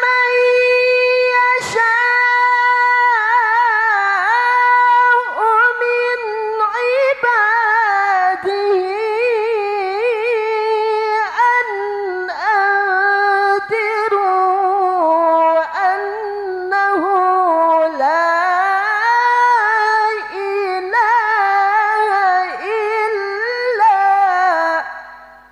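Young male qari's high-pitched, melodious Quran recitation (tilawah) into a handheld microphone: long held phrases with quavering ornamented runs, broken only by short breaths, ending shortly before the end.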